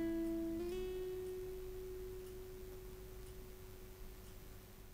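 The last notes of acoustic guitar background music: a final note is plucked just under a second in and rings on as a single held tone, fading away slowly.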